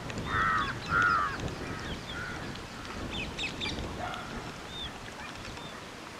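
Birds calling: two louder wavering calls in the first second and a half, then fainter short calls and small high chirps.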